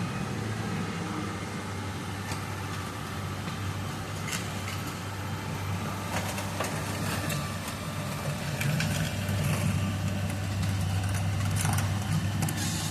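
Excavator diesel engine running steadily, with a few short clicks or scrapes over it.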